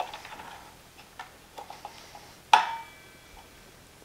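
A few light clicks and taps, then one sharp, louder metallic clink about two and a half seconds in that rings briefly.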